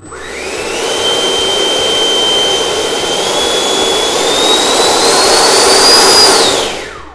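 80mm electric ducted fan of an XFly Sirius model jet run up on the throttle: a loud high whine climbing as it spools up, holding steady, climbing higher still, then winding down quickly near the end as the throttle is cut.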